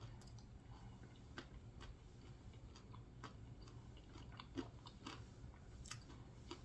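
Faint chewing with scattered small mouth clicks and smacks, close to the microphone, over near-silent room tone.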